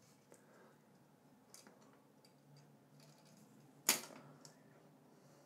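Faint scratches and light ticks of a tape measure held against drywall while a drill-hole spot is marked, with one sharp click about four seconds in.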